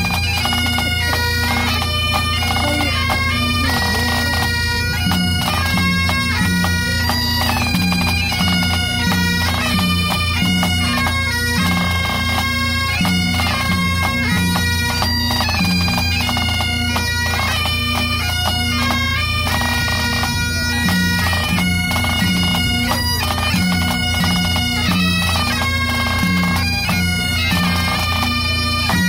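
Scottish pipe band playing: Great Highland bagpipes sound steady drones under a changing chanter melody, with snare and tenor drums accompanying.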